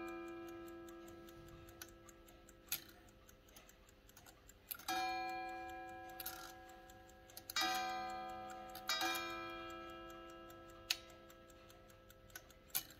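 Grande sonnerie carriage clock movement striking the time: single struck notes that ring and slowly die away, one fading from just before the start and new strikes about 5, 7.5 and 9 seconds in, over the steady fast ticking of its escapement. Two sharp clicks come near the end.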